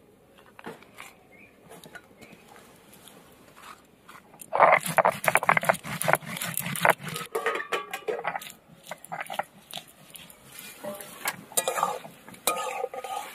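A heavy grinding stone knocking and scraping on a flat stone slab (shil-nora), crushing dried red chillies, green chillies and cumin: a rapid run of knocks about four and a half seconds in, then scattered strokes. Near the end, a wooden spatula scrapes and stirs pieces of fat in a steel wok.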